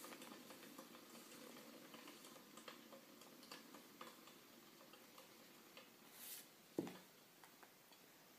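Faint handling of a cardboard jelly-crystals box: light ticks and scrapes of fingers on the cardboard, a short rustle a little past six seconds, then one soft thump about a second and a half before the end.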